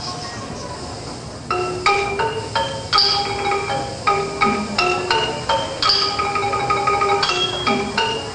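Dance music for a Khmer dance: a melody of struck, ringing mallet-percussion notes, about two to three a second, coming in about one and a half seconds in after a quieter start.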